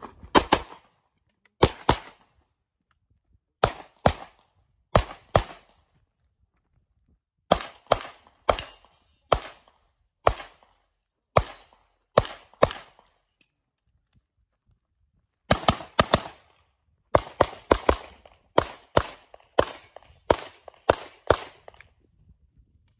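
Semi-automatic pistol fired in a long string of shots, mostly in quick pairs a fraction of a second apart, a double tap on each target. The groups come with gaps of one to three seconds between them, and the shots come fastest near the end.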